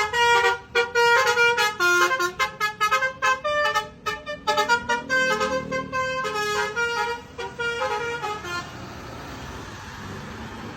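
Basuri 'telolet' multi-tone bus horn playing a quick melody of shifting notes, several notes a second, which stops about eight and a half seconds in. A steady low background rumble follows.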